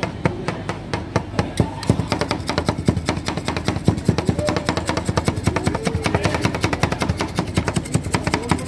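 Two metal spatulas rapidly chopping and tapping on a frozen steel cold plate, mixing nuts into rolled ice cream base: a fast, even run of sharp metallic clacks that gets quicker from about two seconds in.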